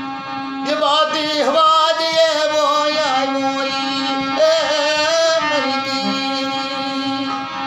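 Music: a voice sings long, wavering notes over a steady drone. The singing starts about a second in and stops about two seconds before the end, leaving the drone alone.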